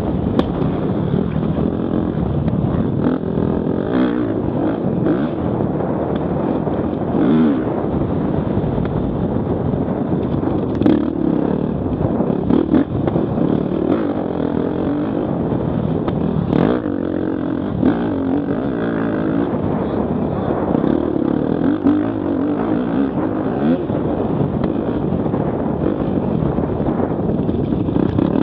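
Enduro motorcycle engine heard from on board, rising and falling in pitch as the rider works the throttle along a dirt track, with a few sharp knocks from bumps in the terrain.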